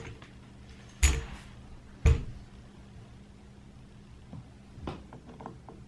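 Two sharp knocks about a second apart, then a few light clicks: hand tools and rifle parts being handled and set down.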